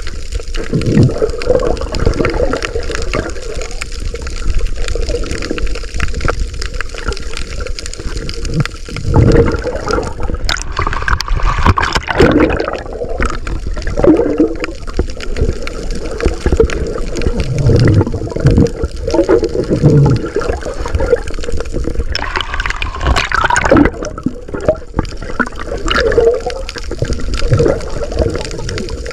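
Water sloshing and gurgling around a submerged camera, heard underwater. There are louder rushes of bubbling about ten seconds in and again about twenty-two seconds in.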